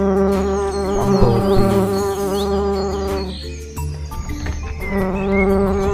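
Bumblebee buzzing: a steady low drone that wavers in pitch, dropping out briefly about three and a half seconds in.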